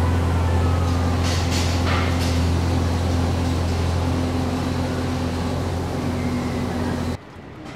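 Heavy road vehicle's engine running close by: a loud, steady low hum, with a few short hisses about a second or two in. The sound cuts off suddenly near the end.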